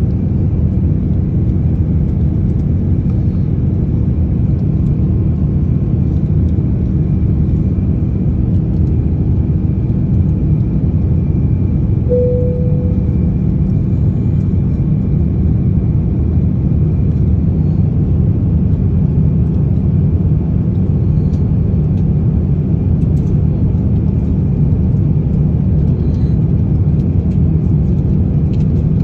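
Steady cabin noise of a jet airliner in cruise, engine and airflow noise heard through the fuselage: a deep, even rumble with a faint high whine above it. A brief single tone sounds about twelve seconds in.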